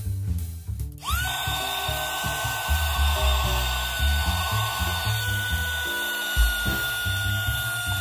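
Mini portable handheld vacuum cleaner switched on about a second in, its small motor spinning up to a steady high whine as it sucks up eggshell fragments.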